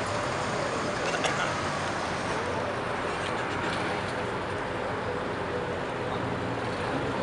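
Street traffic: cars driving past, engines running and tyres on the road in a steady wash of noise, with a brief click about a second in.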